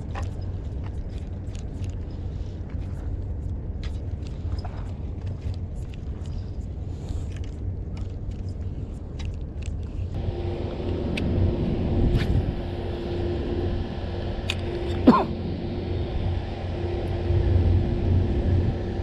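A steady low rumble with faint light ticks. About halfway through, a spinning reel starts being cranked, adding a steady whirring hum as the line is wound in, with one short sharp sound a few seconds later.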